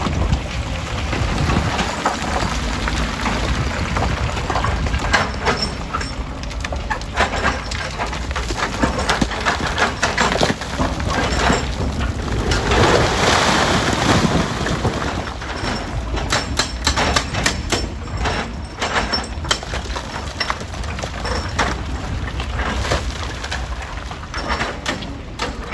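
Stone-crushing machinery running with a steady low rumble under many sharp knocks and clatters of rock, with a louder rushing swell about halfway through.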